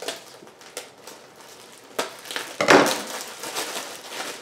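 A garment in its plastic bag being handled: irregular crinkling and rustling with a sharp click about two seconds in, loudest just under three seconds in.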